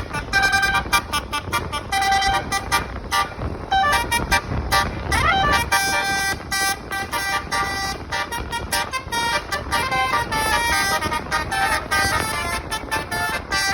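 A bus's basuri musical horn playing a tune: a quick run of short tooting notes that jump between pitches several times a second, with a rising swoop about five seconds in.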